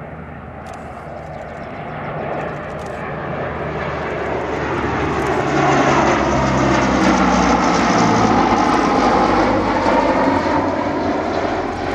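C-160 Transall transport aircraft's twin Rolls-Royce Tyne turboprops on a close flyby: the engine and propeller drone builds as the plane approaches, is loudest for several seconds from about halfway in as it passes, then eases slightly near the end.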